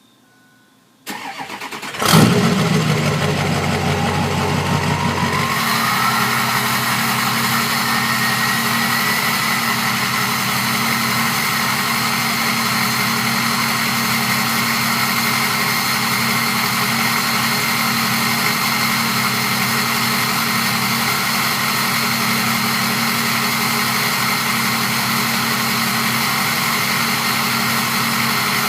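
Ford 6.0 Powerstroke diesel engine with a 2003 turbocharger, starting about two seconds in and then idling steadily. The turbo whistle rises in pitch over several seconds as it spools up, then holds as a steady high whistle over the engine.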